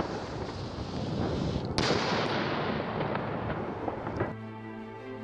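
Fireworks going off in a dense barrage of bangs and crackling, with an abrupt cut about two seconds in. Music takes over about four seconds in.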